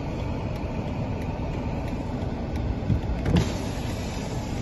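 A car engine idling, heard from inside the cabin as a steady low rumble, with one brief knock about three seconds in.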